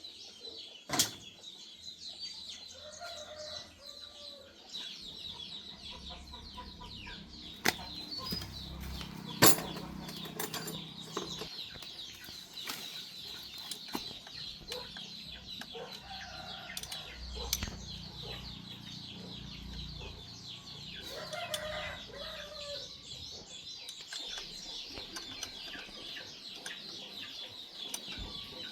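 Chickens clucking now and then, with a few sharp knocks, the loudest about a second in and about nine seconds in, over a steady high hiss.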